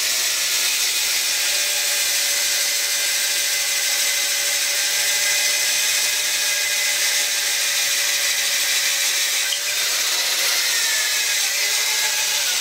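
Large vintage electric drill running steadily under load as its twist bit bores into a block of wood, a continuous motor whine with the cutting noise. Its pitch wavers slightly in the last couple of seconds as the bit goes deep.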